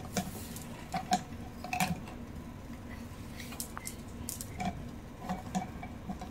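Plastic felt-tip markers clicking and rattling against each other and a plastic cup as a hand rummages among them and pulls some out, in scattered light clicks.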